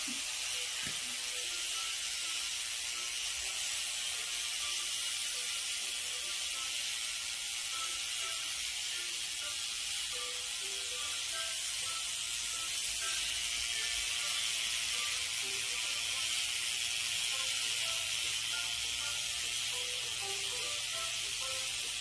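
Small electric motors and plastic gears of K'nex toy robots running: a steady whirring hiss with faint scattered clicks and ticks.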